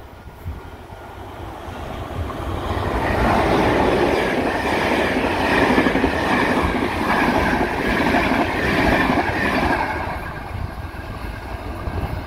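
CP Class 5600 electric locomotive and its Intercidades coaches passing at speed. Wheel and rail noise builds as the train nears, is loudest for several seconds as the coaches go by, then fades near the end.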